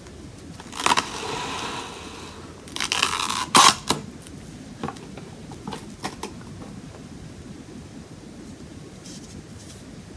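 Saran Wrap plastic film pulled off its roll in two long pulls, the second ending in a sharp snap as the sheet is torn off, then a few light crinkles as the film is smoothed onto the table.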